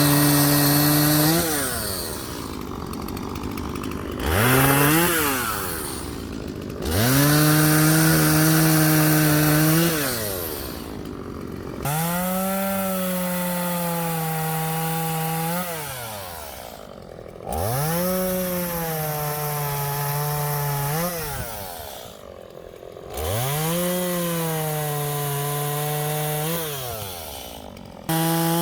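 Gas chainsaw bucking up a fallen tree. It is run up to full throttle for cuts of a few seconds each and drops back toward idle between them, about six times.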